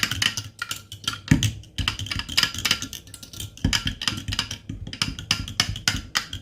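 A spoon stirring a drink in a glass cup, clinking against the glass in quick, irregular taps.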